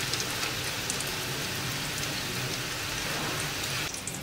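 Hot oil sizzling and crackling steadily as sweet potato and taro balls deep-fry in a pan, with a brief change in the sound near the end.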